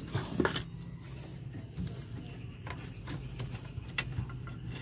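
A few light clicks and knocks of parts being handled, over a steady low hum.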